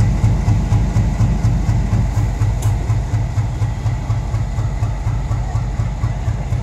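ALCO WDM-3A diesel-electric locomotive's 16-cylinder ALCO 251 engine working hard as it pulls a train away, a deep throb of about five beats a second that eases slightly as it draws off, with the coaches rolling past over the rails.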